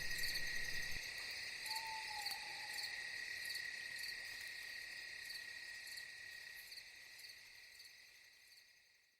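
Night-time ambience track of steady cricket chirring, with one short falling call about two seconds in. It fades out near the end.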